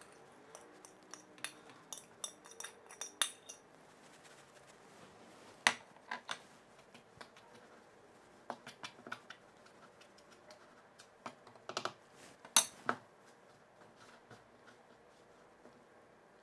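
A fork clicking and scraping against a mixing bowl as mashed potato is worked into flour for dough: irregular sharp taps, a quick run of them in the first few seconds and a few louder clinks about a third and three-quarters of the way through.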